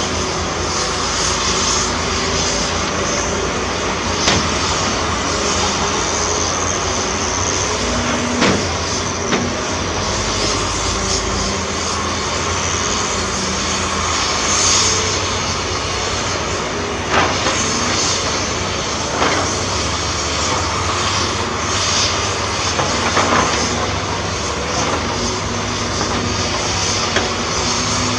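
Heavy diesel earthmoving machinery, an excavator and dump trucks, running steadily, with several sharp knocks spread through the stretch.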